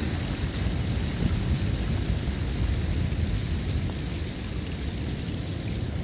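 Steady low rumble of wind and rushing water as a flooded river breaches through its sand bar to the sea, with wind buffeting the microphone.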